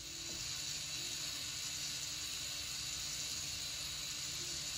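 Battery-powered K'nex Raptor ride's motor and plastic gears running steadily: a constant hiss-like whir with a faint low hum underneath.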